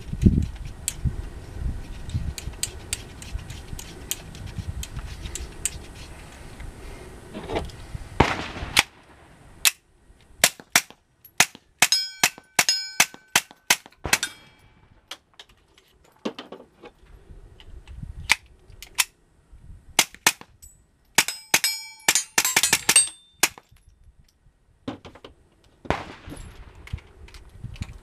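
Smith & Wesson M&P 22 Compact .22 LR pistol firing, most likely through a Dead Air Mask HD suppressor: a long string of sharp, cracking shots, some spaced out and some in rapid bunches, with short pauses between strings.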